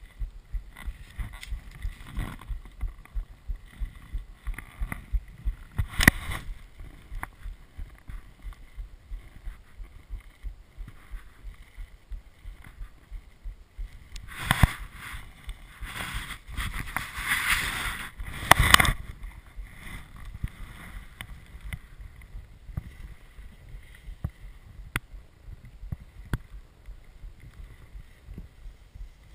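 Soft low thumps about two a second, picked up through a chest-mounted action camera from the wearer's body and clothing. A louder stretch of rustling, scraping noise comes about halfway through.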